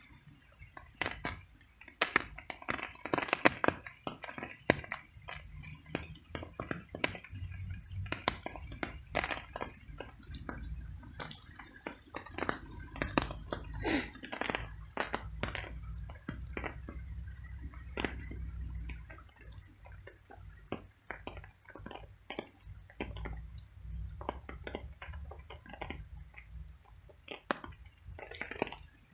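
Cat chewing and smacking on pieces of cooked meat: a dense, irregular run of short wet clicks and smacks, mixed with rain dripping.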